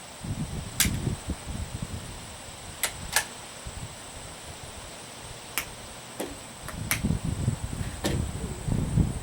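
Several short, sharp clicks at uneven spacing, two of them a third of a second apart, over a low rumble of wind on the microphone.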